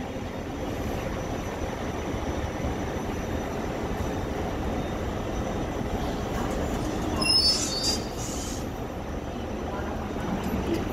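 Trains at a station platform: a steady low rumble, with a brief high-pitched squeal of steel wheels about seven seconds in.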